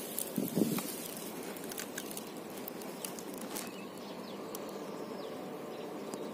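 Quiet outdoor background with faint bird chirps and a few small clicks, and a brief low thump about half a second in.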